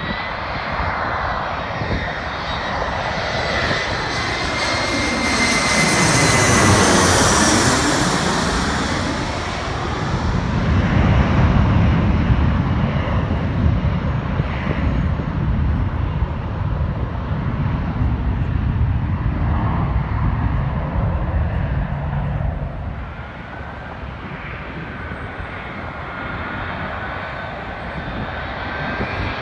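Embraer 175 jet's twin turbofans passing low overhead on final approach: a high whine that drops steeply in pitch as it goes over about seven seconds in, followed by a low rumble that slowly fades. Near the end the whine of a Boeing 777-200 on approach starts to rise.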